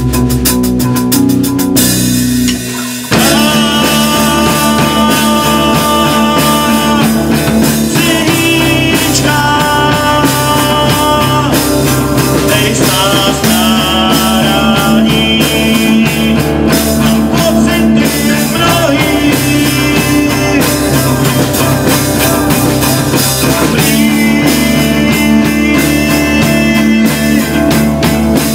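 Live rock band playing: electric bass, drum kit and acoustic guitars, with a short drop in the music about three seconds in before the full band comes back in.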